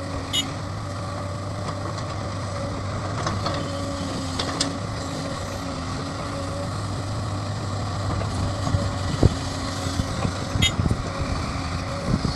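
Heavy diesel construction machinery running steadily, with a low engine hum, a pitched tone that comes and goes, and a few sharp metallic knocks, the loudest about nine seconds in.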